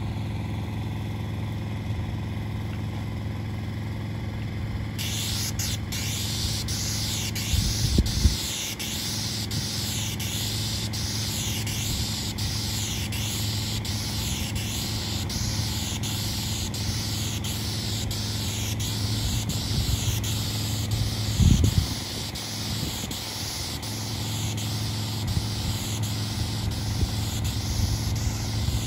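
Asphalt sealcoat spray rig running: a steady engine drone from the pump unit, with the hiss of sealer spraying from the hand wand starting about five seconds in. Two brief low thumps come about eight and about twenty-one seconds in.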